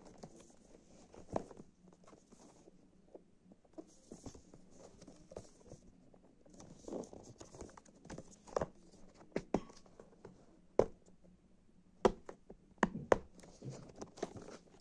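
Cardboard headphone retail box being handled and turned over: scattered light taps and knocks with brief scraping rustles. There is a handful of sharper knocks in the second half.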